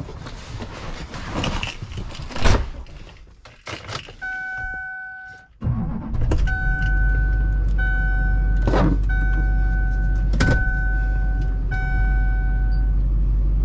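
Keys jangling and door and seat knocks as someone climbs into a pickup truck. A steady two-tone warning chime sounds, then the truck's engine starts about six seconds in and runs at a steady idle, while the chime beeps about every second and a half.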